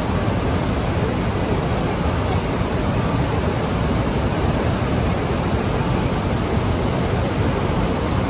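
Niagara Falls: a loud, steady, unbroken rush of water falling and churning below the falls.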